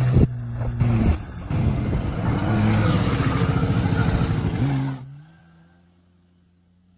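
Jet ski engine running steadily under the hiss of churned water and spray. About five seconds in the sound drops off abruptly, leaving only a faint low hum.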